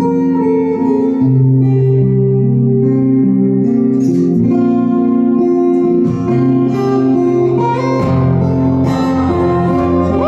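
Solo acoustic guitar playing a melody over low bass notes.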